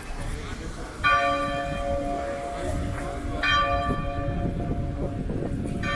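A bell tolling: three strikes about two and a half seconds apart, each ringing on under the next.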